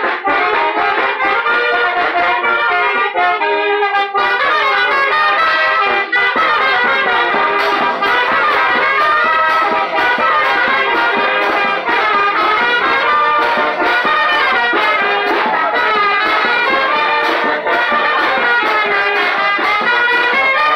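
Loud, lively brass-band music led by trumpets, playing a dance tune, with a steady percussion beat of sharp ticks about three a second from about seven seconds in.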